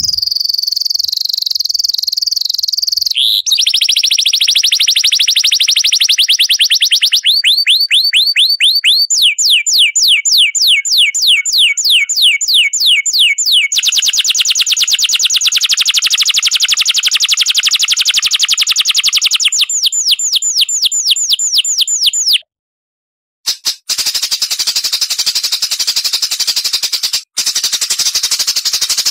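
Recorded songbird song: long, very fast rattling trills of rapidly repeated sweeping notes, shifting to a new pitch every few seconds. After a brief break about 22 seconds in, a dense, high, continuous twittering follows.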